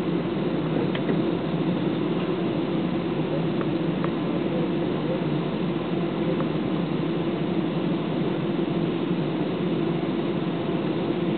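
Airbus A320's jet engines and cabin air heard from inside the passenger cabin as the airliner taxis after landing: a steady hum with a strong low drone.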